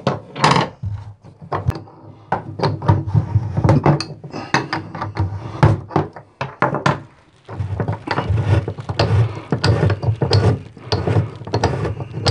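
Metal tools clicking and knocking as a stuck bathtub drain flange is wrenched loose with a tub drain wrench and an adjustable wrench. Rough scraping runs through the second half as the threads turn, held tight by dried plumber's putty packed into them.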